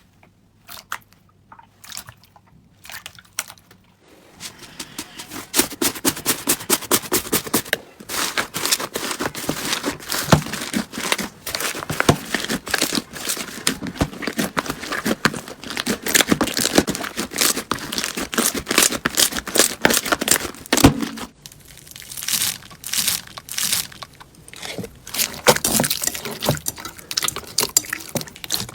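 Slime being squeezed and stretched by hand, giving dense crackling and popping clicks. The clicks are sparse at first, then come thick and fast from about four seconds in, with a short lull near the end.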